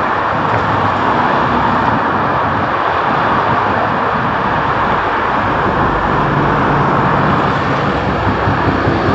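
Steady rushing noise with a faint low engine hum coming in about six seconds in, as a Class 66 diesel freight locomotive approaches.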